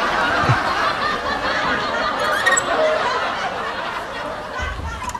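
Laughter from many voices at once, fading toward the end.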